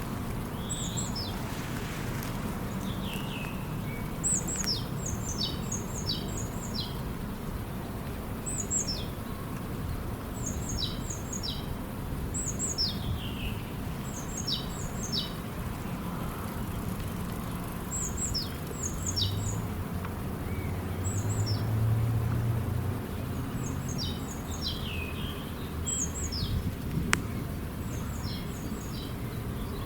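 Songbird singing over and over in short phrases of quick high notes that drop in pitch, a phrase every second or two, over a steady low rush of background noise. A faint low hum comes in around the middle.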